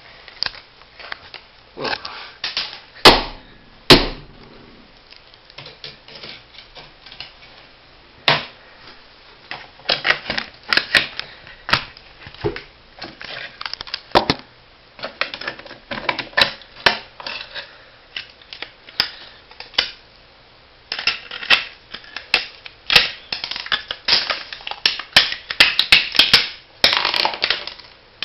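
A floppy disk drive's metal and plastic casing being worked apart by hand: irregular clicking and clattering. There are two sharp knocks about three and four seconds in, and dense runs of rapid clicks in the middle and toward the end.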